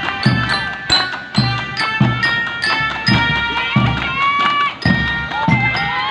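Marching drum band playing: a bass drum beats about twice a second under a melody of sustained wind or bell notes, with some notes bending in pitch.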